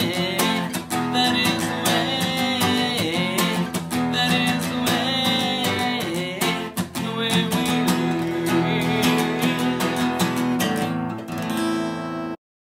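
Acoustic guitar strummed in a quick, even rhythm of full chords, cutting off suddenly near the end.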